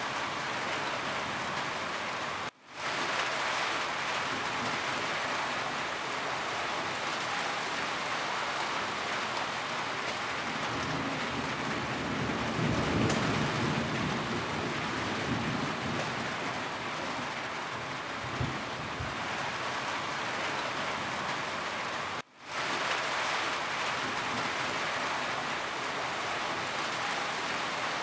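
Steady heavy rain falling on a roof, with a low rumble of distant thunder swelling and fading in the middle. The sound cuts out for a split second twice, about two and a half seconds in and near the end.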